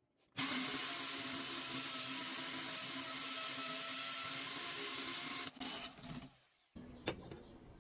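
Drill running an annular cutter through a steel plate: a steady motor hum with the high hiss of the teeth cutting metal. It stops about five and a half seconds in and dies away, and a fainter sound with a single click follows near the end.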